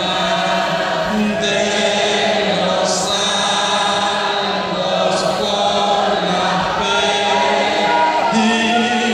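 A large crowd of people singing together, many voices holding long notes.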